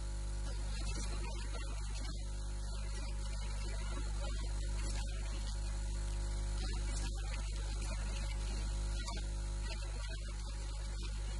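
Steady electrical mains hum with its overtones, over a constant hiss.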